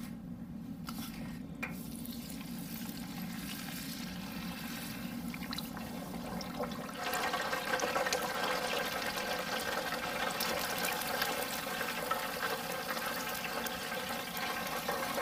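Breaded chicken thigh deep-frying in hot oil in a deep fryer: a dense crackling sizzle that sets in about seven seconds in. Before it there is only a low steady hum.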